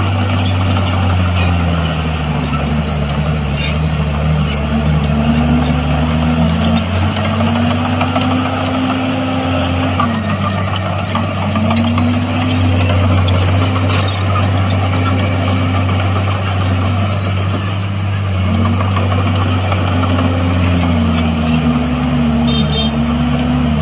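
Bulldozer's diesel engine running steadily under work, with a low drone and a higher engine note that rises and falls over and over.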